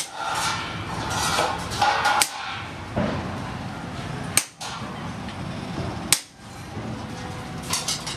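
Hammer blows on red-hot sword steel over a steel anvil: about five sharp metallic strikes, roughly every two seconds.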